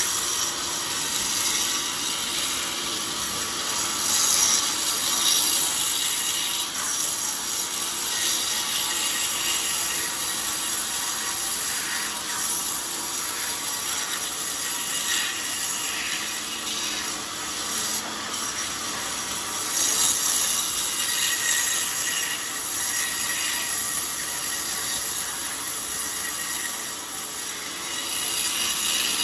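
Band sawmill blade cutting lengthwise through an old, very hard coconut-palm log: a steady, high hissing rasp of the blade in the wood, with the saw's machinery running underneath.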